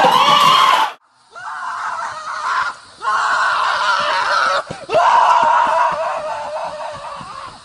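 A loud shout cut off suddenly about a second in, then a man screaming in three long drawn-out cries, fading near the end.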